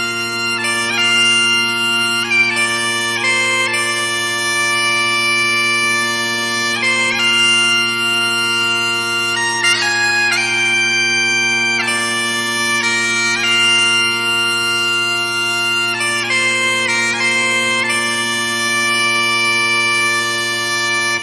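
Bagpipes playing a tune over their steady drones, the melody moving between held notes with quick ornament notes between them.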